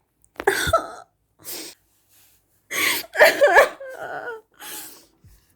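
A person's voice in a string of about six short, breathy bursts with no clear words.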